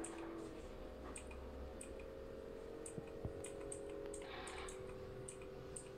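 Faint, irregular light clicks and ticks over a steady low hum, with a brief soft rustle about four and a half seconds in: a hand handling crocheted rattle toys on wooden rings.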